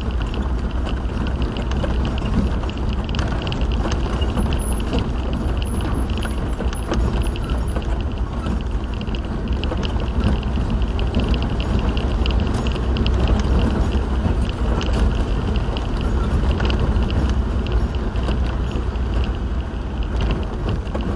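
Steady road and engine noise inside a moving car's cabin: a continuous low rumble with a hiss of tyre and wind noise over it.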